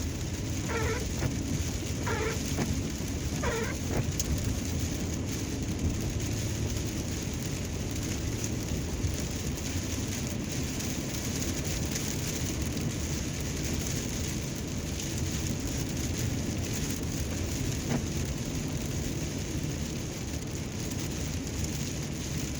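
Steady rain, with a low rumble underneath. In the first few seconds, short squeaky chirps sound about every second and a half.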